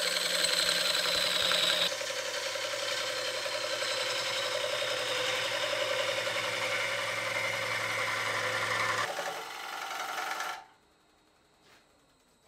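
A turning gouge cuts dry ambrosia maple spinning on a Laguna wood lathe, making a steady rough hiss of shavings over the lathe's low motor hum. The sound changes about two seconds in and cuts off about two seconds before the end, leaving quiet.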